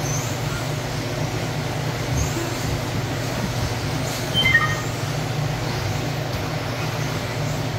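Electric 1/10-scale 4wd RC buggies with 13.5-turn brushless motors racing on a carpet track: high motor whines rise and fall as the cars pass, over a steady low hum. A brief high chirp comes about four and a half seconds in.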